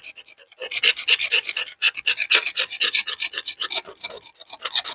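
A small blade scraping rapidly back and forth along a wooden bow limb, a quick run of short rasping strokes with a couple of brief pauses. The limb's surface over the crack is being scraped clean so the adhesive can soak into the wood fibres before it is bound.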